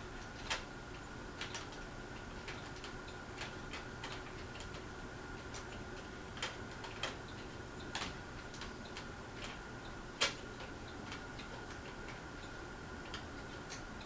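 Hampton Bay Courtney ceiling fan running, its motor giving a steady faint whine, with irregular light clicks and ticks about once or twice a second; one louder click about ten seconds in.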